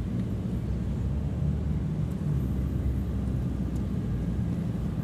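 Steady low rumble of outdoor city background noise. No distinct event stands out.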